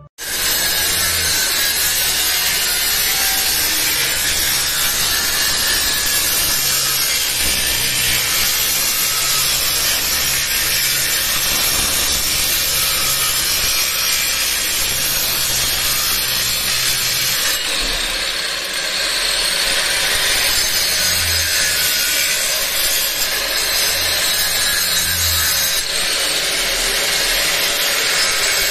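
Large angle grinder with a cutting disc running steadily while cutting into a rendered masonry wall, the disc grinding through the render. The noise dips briefly about two-thirds of the way through, then carries on.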